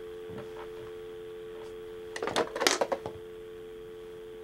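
Telephone dial tone, two steady tones sounding together, humming from a handset receiver after the other party has hung up. A brief cluster of other sound breaks in a little over two seconds in.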